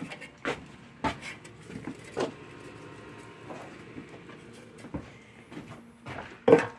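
Handling noise as things are moved about: a handful of short, light knocks and clunks spread through, with rustling between them.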